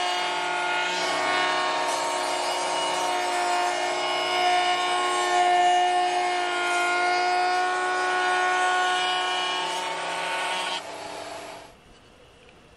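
Table-mounted router running at steady speed, its bit cutting a grooved profile along a pine strip pushed against the fence. The motor is switched off about eleven seconds in and the sound stops within a second.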